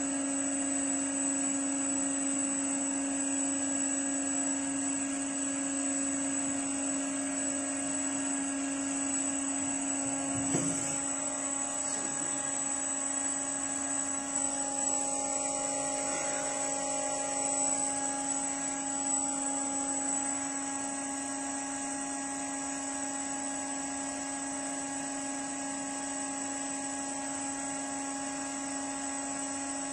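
Steady machine hum with several fixed pitches from a lithium-battery needle-penetration tester, running while its needle chuck is lowered toward a cylindrical cell; one brief knock about ten seconds in.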